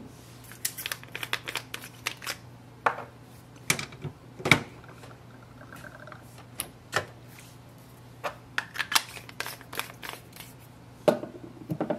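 Irregular plastic clicks and taps as a magenta Epson 502 ink bottle is handled, seated upside down in the EcoTank's fill port, and pulled back out, over a faint steady low hum.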